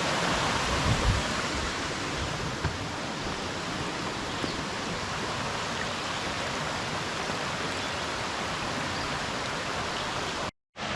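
Steady rush of water from a mountain stream, cutting out briefly near the end.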